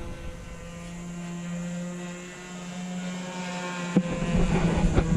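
RC sport plane's motor and propeller droning steadily in flight, a thin pitched hum. About four seconds in there is a sharp knock, followed by rougher rustling noise.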